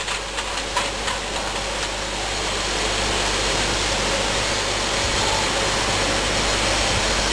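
Shrink-wrap packaging line running: a steady, even machine noise from the overwrapper, shrink tunnel and conveyors, with a few light clicks in the first second or so. The noise grows slightly louder about two seconds in and then holds steady.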